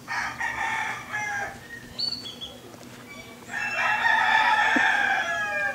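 A rooster crowing twice: a shorter crow at the start and a longer, louder one from a little past halfway that drops in pitch at its end.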